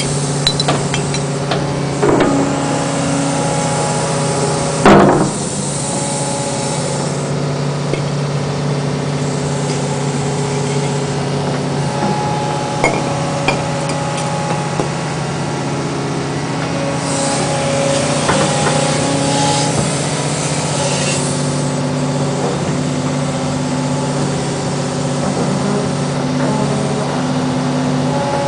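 Excavator engine running steadily as the boom and bucket are worked, with a sharp knock about five seconds in, scattered clicks, and a few seconds of high hiss a little past the middle.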